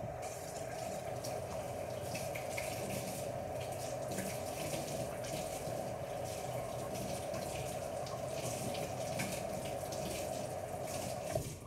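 Water running from a tap as hands are washed under it, a steady rush with small splashes that shuts off near the end.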